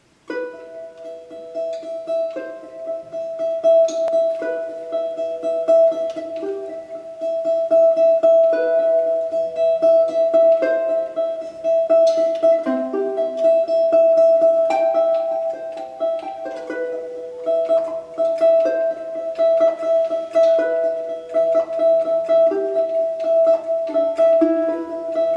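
Domra solo: plucked notes of a melody, with one high note repeated steadily throughout as the other notes move beneath it.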